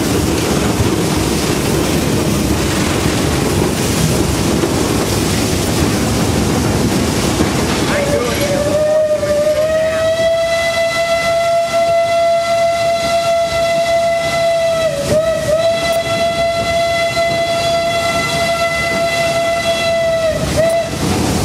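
Mount Washington Cog Railway steam locomotive blowing its whistle in one long blast of about twelve seconds, starting about eight seconds in and wavering briefly midway. Before it, the steady rumble of the cog train running.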